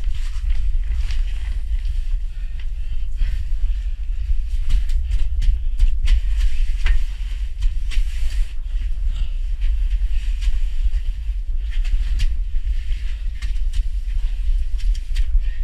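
Steady, muffled low rumble with scattered knocks and scrapes: rubbing and jostling noise on a body-worn GoPro action camera as its wearer moves.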